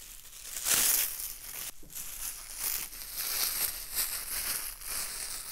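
Clear plastic stretch wrap being pulled off and crumpled: crinkling and rustling, loudest about a second in, then softer and uneven.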